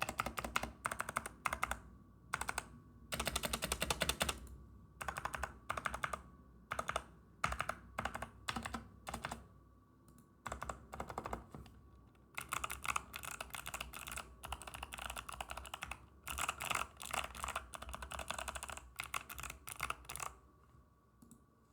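Fast typing on a mechanical keyboard with unlubricated Kailh Box White clicky switches, in quick runs of keystrokes separated by short pauses, with a longer lull about ten seconds in. The typing stops near the end.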